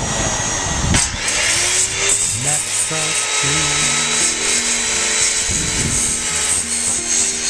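Background music with a steady bass line plays over a handheld circular saw cutting through a wooden framing board; the saw's hiss comes in about a second in and runs on under the music.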